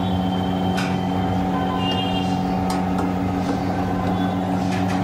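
A hand-held spark lighter clicking three times, about two seconds apart, at a gas-stove burner, over a steady low hum.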